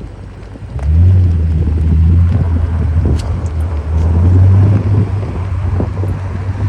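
2023 BMW M5's twin-turbo V8 revving up from idle about a second in as the gas pedal is tapped, holding a loud steady hum that swells again near four seconds, with faint clicks over it. This is the clicking and knocking noise on tapping the gas pedal that the owner is recording.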